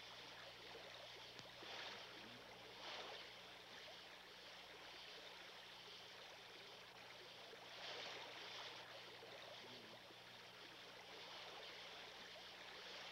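Faint rushing of a shallow stream over gravel, swelling briefly a few times, over a steady low hum.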